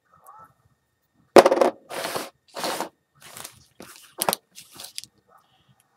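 Foil trading-card pack wrapper crinkling as it is handled, a run of crackly rustles, the first about a second and a half in the loudest.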